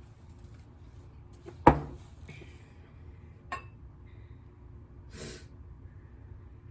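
Mealtime handling sounds: a sharp, loud clack about two seconds in, like a utensil striking a dish, a lighter clack about a second and a half later, and a short breath near the end.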